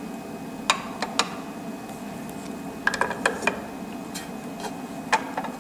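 Small sharp clicks and metal-and-plastic taps from the cutting plotter's tool carriage as the blade holder is swapped for a pen adapter, with a quick run of clicks about three seconds in and single taps before and after.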